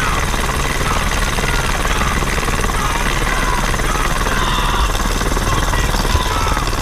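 Helicopter in flight, heard close beneath the fuselage: steady, loud rotor and engine noise.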